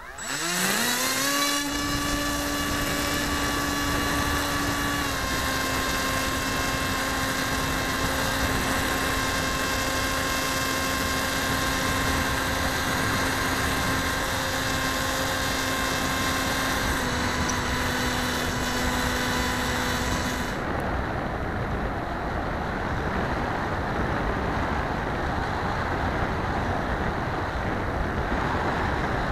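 Electric motor and propeller of a Sky Surfer RC motor glider, heard from a camera on board: a whine that rises quickly as the motor spools up for takeoff, then holds steady, stepping down slightly in pitch twice. The motor cuts off about twenty seconds in, leaving only wind rushing over the microphone as the plane glides.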